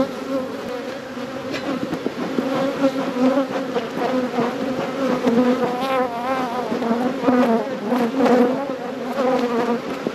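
Honey bees from an opened hive buzzing loudly in a steady hum, its pitch wavering as single bees fly close by. A short knock sounds right at the start.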